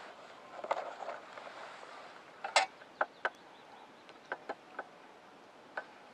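Spoon and camp dishes clinking during a meal: a series of short, sharp clinks, the loudest about two and a half seconds in.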